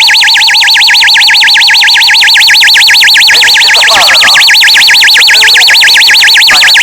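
Building fire alarm sounder giving its evacuation tone: a loud electronic siren sweeping rapidly up and down in pitch, several times a second.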